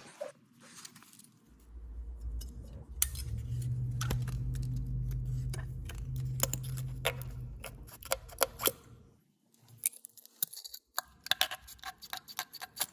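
Light metallic clicks and scraping of hand tools and a feeler gauge working the valve gear of a Honda TRX400 during a valve clearance adjustment. A low hum rises from about a second and a half in and fades out around nine seconds.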